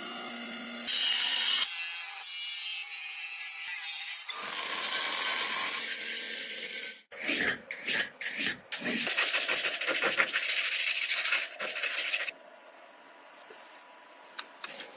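Workshop tool sounds in short edited cuts: steady abrasive rubbing and rasping like sanding or filing, then irregular knocks and scrapes, dropping much quieter about twelve seconds in.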